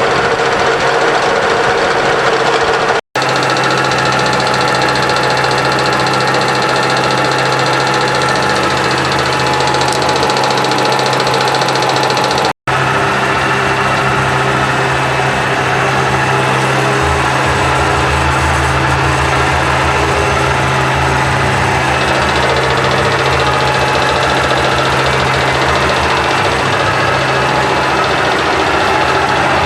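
Metal lathe running in a steady, loud machining drone, with a few steady tones in it. The sound drops out for an instant twice, about three seconds in and about twelve seconds in.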